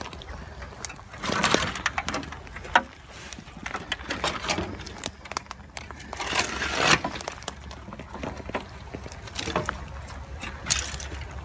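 Footsteps through moss, dead grass and dry twigs: scattered snaps and clicks with a few louder rustling swishes.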